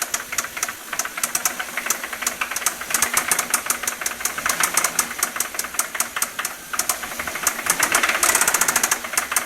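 Toyota 1JZ-GE inline-six engine running with a sharp, regular knock that quickens and grows louder when the throttle is blipped, about three seconds in and again near the end. The knock comes from a spun connecting-rod bearing shell; it was first blamed on the VVT-i gear.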